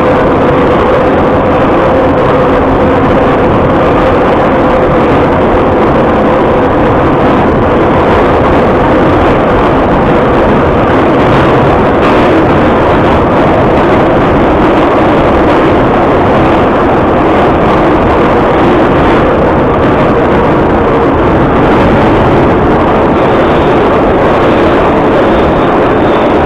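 Vintage metro train running at speed through a tunnel: a loud, steady rumble and clatter of steel wheels on rails, heard from inside the carriage, with a faint whine that dips slightly in pitch over the first few seconds.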